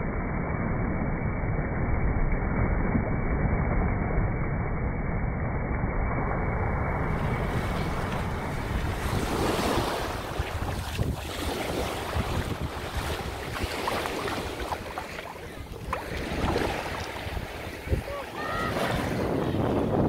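Small waves washing in and running up a sandy beach in the shallows, with wind buffeting the microphone.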